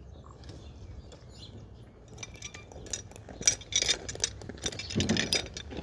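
A rapid, uneven run of metallic clicks and clinks, starting about two seconds in and busiest in the last couple of seconds, as of metal tools or hardware being handled or worked.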